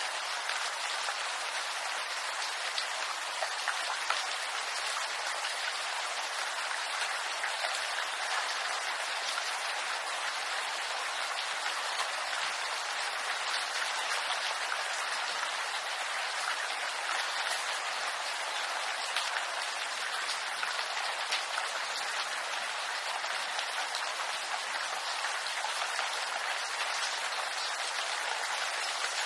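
Steady rain falling in a bamboo grove: an even hiss of rainfall with scattered drops ticking on leaves.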